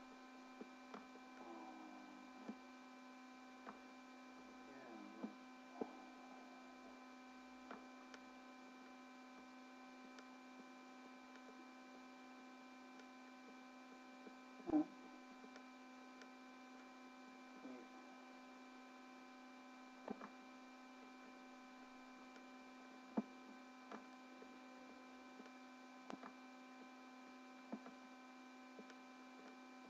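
Faint, steady electrical hum with several steady tones layered together, broken by scattered faint clicks at irregular intervals, the loudest about fifteen seconds in.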